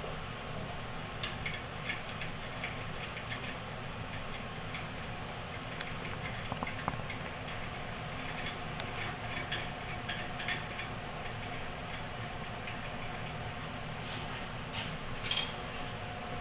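Scattered light metallic clicks and taps from parts on a drill press head being handled and adjusted, with one louder metal clack near the end, over a faint steady hum.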